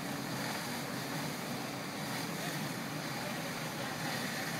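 Steady, even rushing noise with a low hum beneath it and no distinct events: the background sound of a building fire being fought with hose streams.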